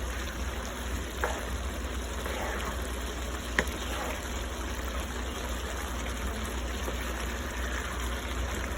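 Chopped chicken breast, onions and bell peppers simmering and sizzling in a pan as their liquid cooks off: a steady hiss with a low hum underneath. Two faint clicks come about a second and three and a half seconds in.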